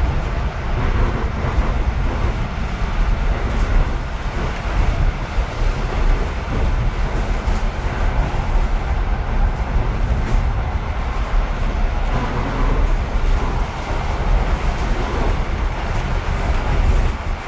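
Inside a ČD class 475 electric multiple unit passenger car running along the line: a steady, loud running noise with a heavy low rumble and a few faint knocks from the wheels and bogies.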